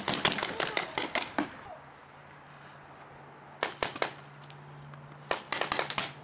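Paintball markers firing in quick bursts of sharp pops: a rapid string of shots at the start, a few more in the middle, and another rapid burst near the end.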